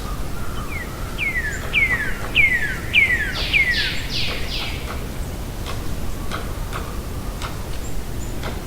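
A distant woodpecker calling: a series of about eight down-slurred notes roughly half a second apart, the last few louder, over a steady low background rumble. A few faint ticks follow.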